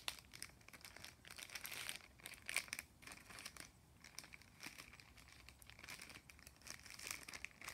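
Soft, irregular crinkling and rustling of a thin plastic bag as a pad-wrapped sample bottle is worked into it with gloved hands, with a louder flurry about two seconds in.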